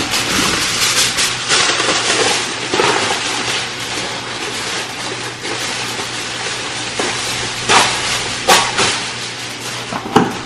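Aluminium foil being handled and pulled off the roll, a continuous crinkling rustle with a few sharp crackles near the end.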